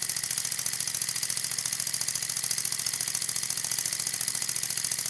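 Three small single-acting spool valve engines running together on compressed air: a fast, even puffing beat from their exhausts over a steady hiss of air.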